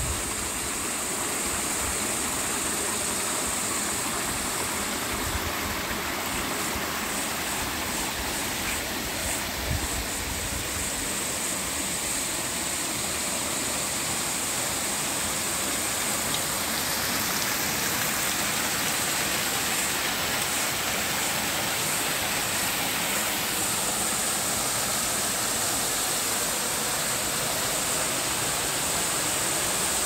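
Creek water rushing and splashing steadily over a small waterfall.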